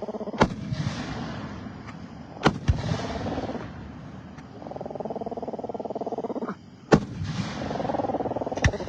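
Fireworks exploding: about five sharp bangs, two of them close together, the loudest about seven seconds in. Between the bangs, an upset pet makes long, pulsing vocal sounds.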